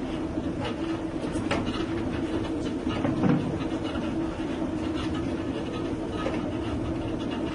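Olive oil mill machinery running: a steady hum with irregular clicking and knocking, and one louder knock about three seconds in.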